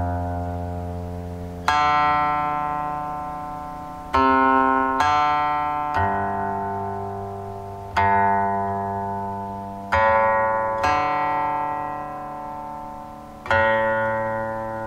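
Guqin (seven-string Chinese zither) playing a slow solo melody: single plucked notes, each ringing on and slowly fading before the next is struck, a new note every one to two and a half seconds.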